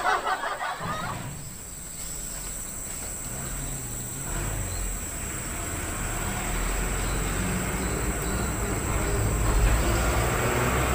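An engine's low, steady hum, slowly growing louder, over a steady high insect buzz.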